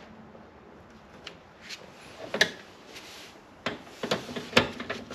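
Scattered clicks and knocks of hands and a tool working a wire into a metal circuit breaker panel, with two louder knocks, one about halfway through and one near the end.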